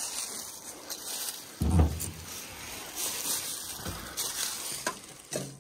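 Footsteps and rustling through brush and undergrowth, a few irregular short crunches and cracks, the loudest about two seconds in.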